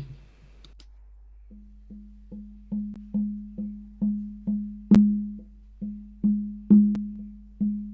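Hand drum beaten in a steady pulse of about two strokes a second, each stroke ringing at a low pitch and fading before the next, with a few louder accented strokes. The beat comes in about a second and a half in, as the intro to a chant-style song.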